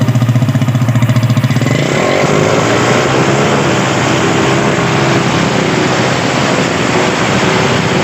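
Honda CG 125 single-cylinder four-stroke engine running through a 'machine gun' aftermarket exhaust silencer: a rapid, even popping at idle, then revved up about two seconds in and held at higher revs.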